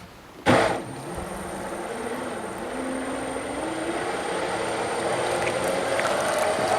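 Twin electric RC jet drives (KMB 40mm jet units on Turnigy brushless motors) starting up about half a second in with a sudden rush of water, then running steadily with a high electric whine and churning water, getting gradually louder as the throttle is brought up.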